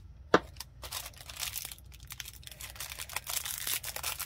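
A single sharp knock about a third of a second in, then the crinkling of a small clear plastic bag of loose gold glitter being handled and turned in the fingers.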